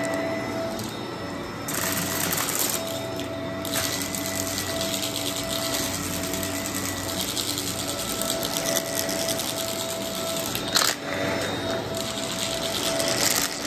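Upright vacuum cleaner running over carpet, with fast rattling and crackling as it sucks up scattered bits of crunchy cereal. There is one sharp clack about eleven seconds in.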